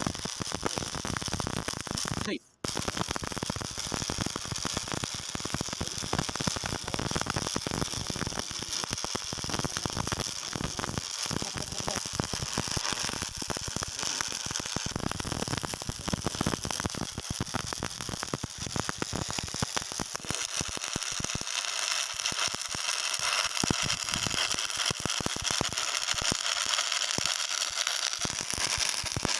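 Electric arc welding: the steady crackling hiss of the welding arc, broken by a brief gap about two and a half seconds in.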